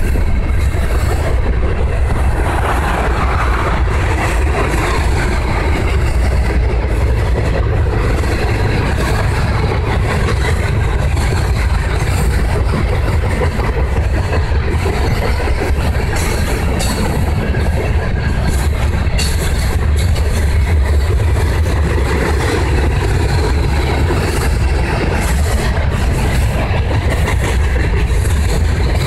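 Loaded rock hopper cars of a freight train rolling past, a steady heavy rumble of steel wheels on the rails with scattered sharp clicks.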